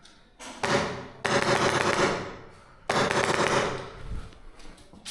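Airsoft rifle firing three rapid-fire bursts, each about a second long, with a short echo trailing each burst.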